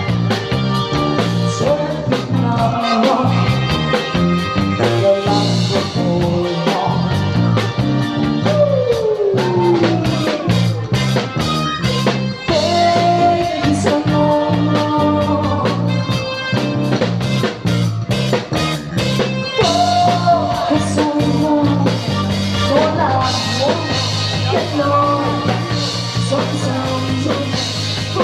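Upbeat pop-rock song with a sung melody over a steady beat and a stepping bass line; one sung note slides down about a third of the way through.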